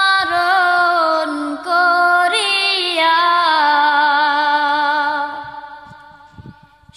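Background song: a woman singing long, held notes with a slight waver, fading away over the last two seconds or so.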